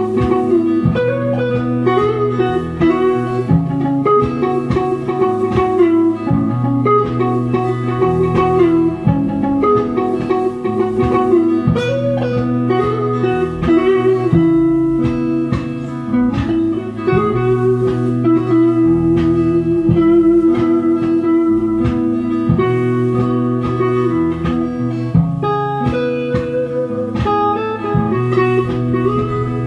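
Electric guitar playing a melodic lead with bends and vibrato over a looped backing of repeating guitar chords and low bass notes.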